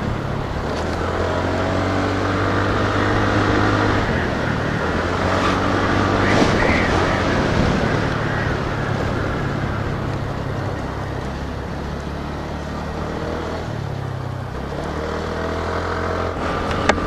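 TVS Ntorq scooter engine running steadily while riding, its pitch dropping a few seconds in and rising again near the end, over steady wind and road noise.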